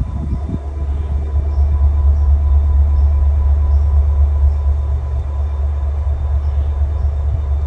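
Norfolk Southern 8098, a GE ES44AC diesel-electric locomotive, idling at rest: a steady low rumble with a thin, constant whine above it.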